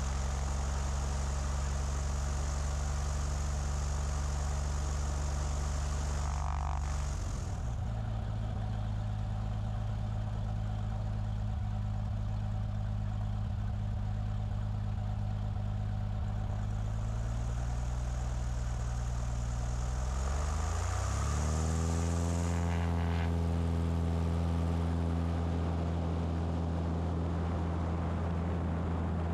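A Cessna's single piston engine and propeller run at low taxi power. The engine note drops a little about a quarter of the way in. About two-thirds of the way through it rises smoothly as the engine speeds up, then holds steady at the higher speed.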